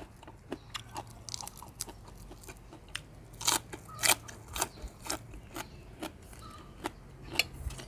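Close-up chewing of raw green vegetables: crisp crunches and mouth clicks, coming about twice a second through the middle of the stretch.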